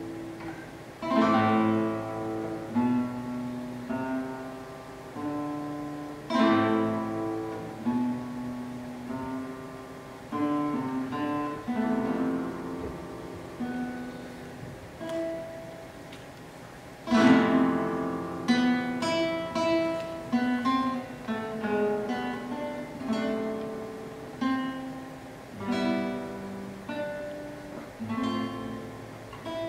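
Solo classical guitar playing a contemporary piece: plucked single notes and melodic lines, broken by loud strummed chords about a second in, around six seconds in, and at about seventeen seconds.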